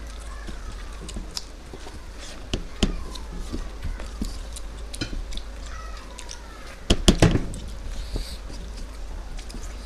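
Eating sounds from hands working food on a plate: scattered small clicks and clinks, with a louder clatter about seven seconds in.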